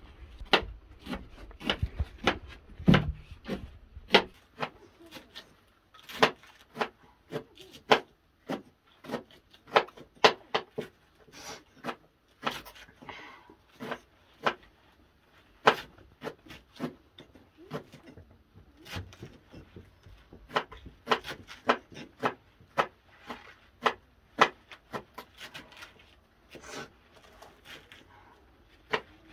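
Fresh leafy greens being cut with small knives and picked over by hand, giving irregular sharp snips and stem snaps, one or two a second. A low rumble sits under the first few seconds and stops about four seconds in.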